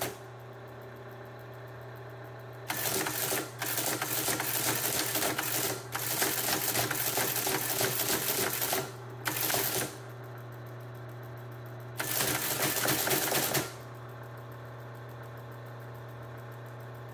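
A 1950s Lorenz LO15 electromechanical teleprinter prints a line of text. Its motor keeps up a steady hum throughout, and the type mechanism clatters rapidly in five bursts, the longest about three seconds. After the last burst, a few seconds before the end, only the motor hum remains.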